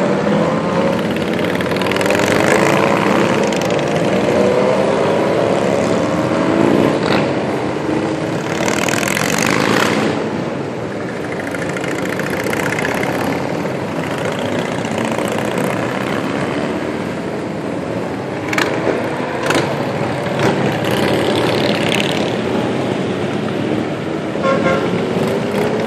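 A procession of motorcycles and other vehicles passing, many engines overlapping and rising and falling in pitch as they go by, with horn toots.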